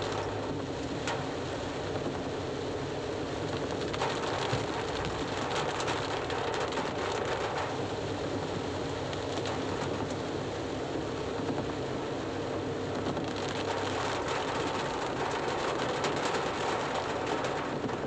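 Heavy rain falling on a car's roof and windscreen, heard from inside the cabin, a steady hiss with the car running underneath.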